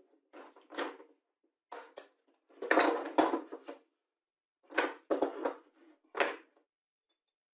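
Plastic spring clamps and MDF boards clattering and knocking on a wooden workbench as a glue-up is unclamped: a run of short knocks and rattles, loudest in a cluster about three seconds in, then a few more knocks as the boards are handled.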